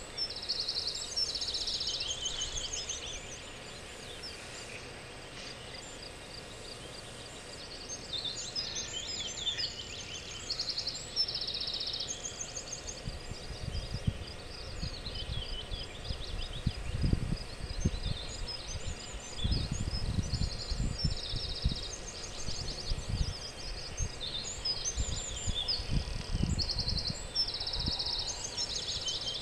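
Songbirds singing, short, rapid, high trilled phrases and chirps repeating every second or two from several birds. In the second half, low irregular rumbles of wind buffet the microphone.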